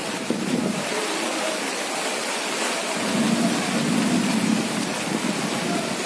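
Steady rain falling, an even dense hiss, with a low rumble swelling up from about three seconds in and easing off about two seconds later.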